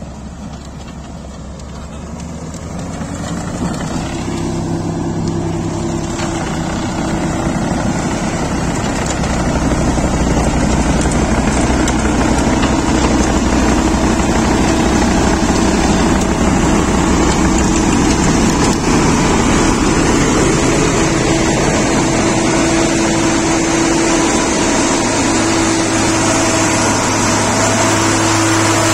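A vehicle engine running steadily with a broad rumble. It grows louder over the first ten seconds or so, then holds at a steady level.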